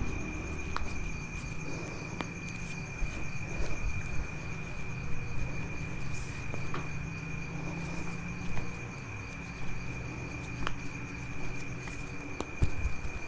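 Insects, typical of crickets, trilling steadily on one high pitch over a low background hum, with a few faint clicks scattered through.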